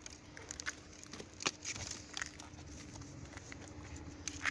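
Plastic packaging and cardboard rustling and crinkling as parts are handled in an opened shipping box, with scattered small clicks and a sharper tap about one and a half seconds in.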